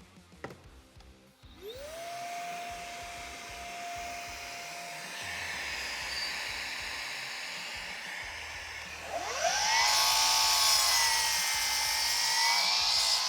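Milwaukee M18 FUEL One-Key 305 mm cordless mitre saw spinning up with a rising whine. About nine seconds in it runs up again, louder, its pitch sagging and recovering as the blade cuts through a piece of timber.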